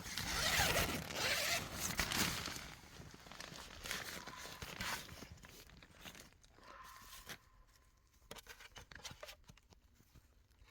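Zipper pulled in a few quick rasping strokes, followed about four and five seconds in by weaker ones, then faint scrapes and clicks.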